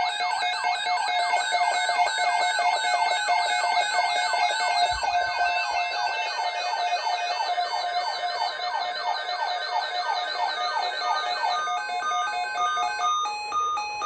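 Several weather alert radios sounding their alarms together for an incoming weather alert: overlapping electronic siren tones, one sweeping in pitch about three times a second over a steady warbling tone. Most cut off near the end, leaving short broken beeps.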